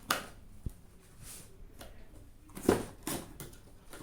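Keyboard packaging being pulled open by hand: a series of short rustles and knocks, loudest about two and three-quarter seconds in.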